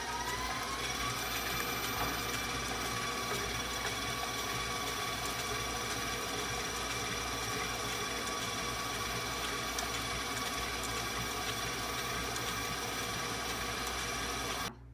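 KitchenAid stand mixer motor running with its flat beater in frosting, its whine rising in pitch over the first second as it is turned up to a higher speed, then holding steady. It cuts off sharply near the end.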